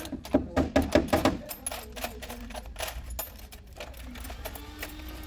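Quick light taps on a car hood panel from paintless dent repair work, a dense run of clicks in the first second or so, then sparser and quieter taps.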